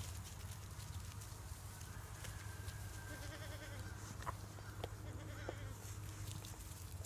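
Sheep bleating faintly a couple of times, with a few short clicks, over a steady low hum.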